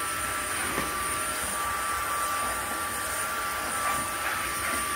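Washing wet-and-dry vacuum cleaner running steadily with a high whine, sucking up a spilled mix of water and cat food from the floor.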